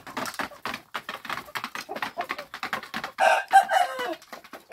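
Chickens pecking grain from a plate on concrete: a rapid, irregular patter of beak clicks. About three seconds in, one chicken gives a loud call that lasts about a second and falls in pitch at the end.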